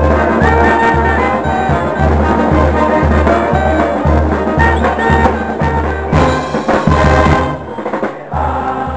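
Brass band of sousaphones, trumpets and trombones with drums, playing a tune with the bass pulsing about twice a second. The music briefly drops away near the end.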